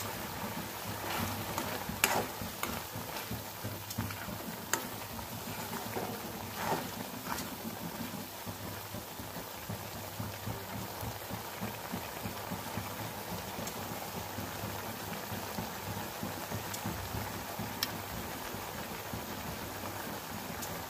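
Kinema (fermented soybean) gravy bubbling and sizzling in a pan, with a spatula stirring and knocking against the pan a few times, the loudest knock about two seconds in.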